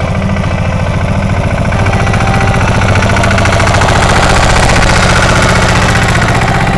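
Pasquali compact tractor's engine working under load, growing louder and rougher from about two seconds in as its rear-mounted blade shoves into a pile of poultry manure and soil, then easing a little near the end.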